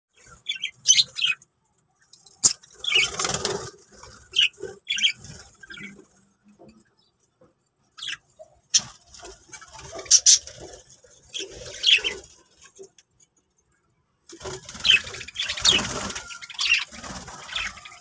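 Budgerigars chirping in short, scattered calls, with a few sharp clicks and rustling in between.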